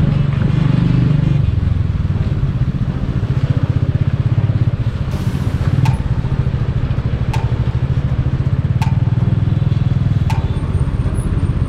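Motorcycle engine running steadily as the bike is ridden, a low, evenly pulsing drone. A few faint clicks come about a second and a half apart in the second half.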